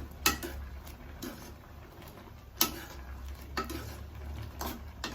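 A kitchen utensil knocking against a cooking pot while the simmering dish is stirred and checked: six sharp knocks about a second apart, the loudest near the start and halfway through.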